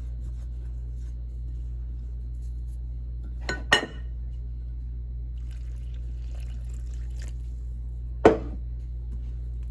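Two sharp clinks of kitchenware, a cup or utensil knocking against a bowl while masa dough is mixed, about four and a half seconds apart, over a steady low hum.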